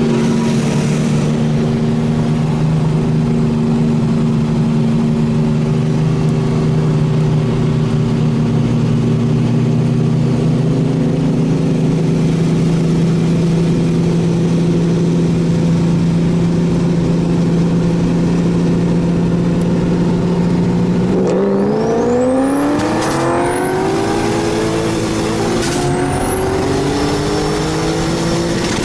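Turbocharged V6 car engine holding a steady pace for about twenty seconds, then going to full throttle for a roll race: the pitch climbs steeply, eases briefly and climbs again as it pulls through the gears.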